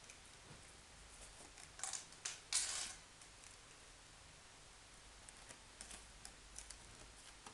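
Faint light clicks and rustles from a cat pawing at a string on a wooden floor, with a short louder rustle about two and a half seconds in and scattered small ticks near the end.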